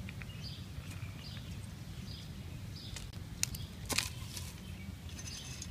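A few light clicks, then a sharp snap about four seconds in as the plastic strap holding a new shock absorber compressed is cut and springs off. Faint bird chirps repeat and a low steady hum runs underneath.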